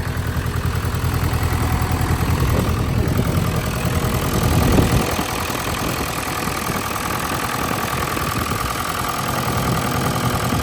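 Cummins 4BT (4-390) four-cylinder diesel engine of a Case 580 Super K backhoe idling steadily, with a brief louder swell about five seconds in. The engine is running well with no blow-by.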